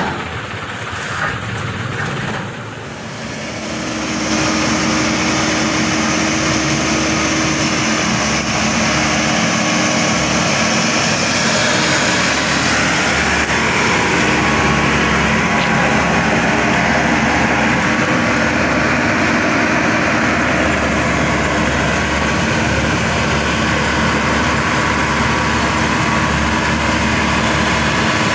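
Maxxi Bimo 102 combine harvester's diesel engine running. It grows loud about four seconds in, after a couple of knocks, and then runs steadily.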